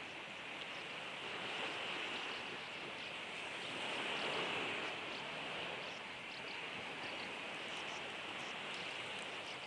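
Steady wash of sea surf, with faint short high chirps scattered over it.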